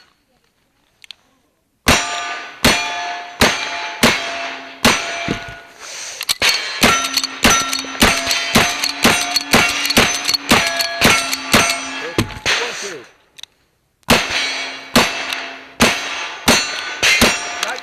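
Rapid string of gunshots in a cowboy action shooting stage, each hit followed by the ringing clang of a steel target. The shots start about two seconds in, come about two a second, pause briefly about 13 seconds in, then resume.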